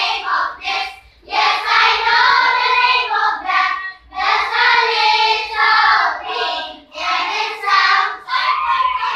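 A class of young children singing together in unison, in phrases of about three seconds with short breaks between them.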